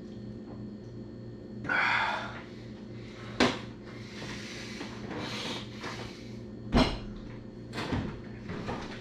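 Handling noises at a table: a rustle about two seconds in, two sharp knocks about three and a half and seven seconds in, and softer scuffs, over a steady low hum.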